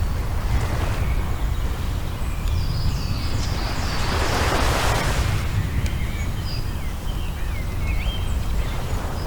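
Wind buffeting the microphone with a steady low rumble, swelling in a gust near the middle, while birds give short high calls, several in the first half and a run of wavering calls near the end.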